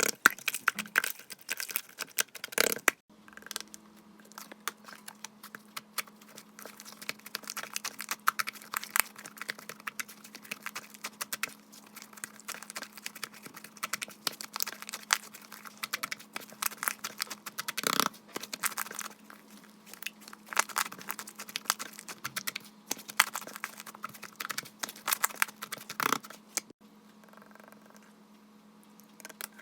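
Hands squishing and kneading slime, a dense run of sticky clicks, pops and crackles that thins out near the end.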